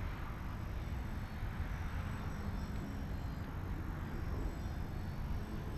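Wind buffeting the microphone in a steady low rumble, with the faint drone of a radio-controlled aerobatic model airplane flying far off.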